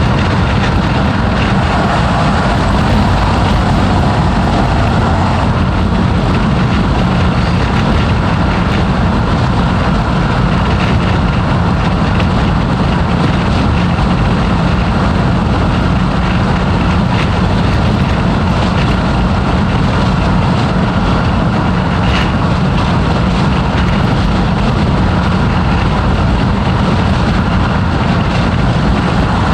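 Mazdaspeed 6's 2.3-litre turbocharged engine running at a steady pace while driving, with engine drone and road noise and no revving or pitch change.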